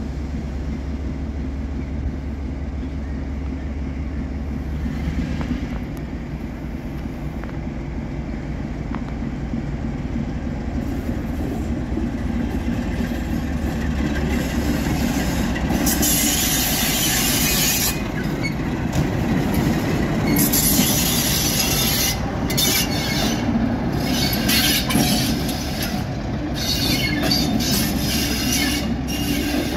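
Class 47 diesel locomotive's Sulzer twelve-cylinder engine running as the locomotive hauls coaches slowly past, growing louder as it approaches. From about halfway through, the wheels squeal on the rails in repeated high-pitched bouts.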